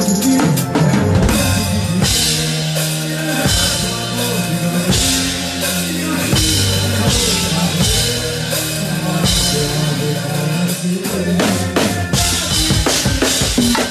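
Live band music with a drum kit and hand percussion over a steady bass line; near the end the drum hits become sharper and more separate, like a fill.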